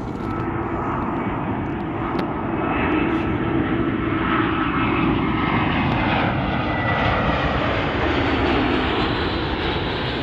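Airbus A320 jet airliner going by, its engine noise swelling over the first few seconds and easing slightly near the end.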